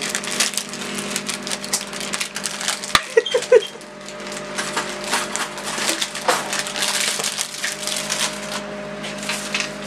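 Crinkly foil snack wrapper rustling and crackling as hands dig cookies out of it.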